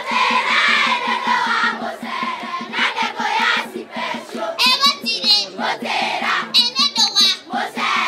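A group of schoolchildren singing together. Shrill, rapidly wavering high cries rise over the singing twice, about halfway through and again near the end.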